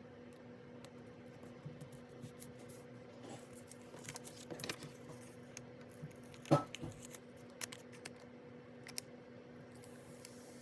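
Hands working on a paper planner: scattered light taps, clicks and rustles of paper and stationery, with one sharper knock about six and a half seconds in, over a steady low hum.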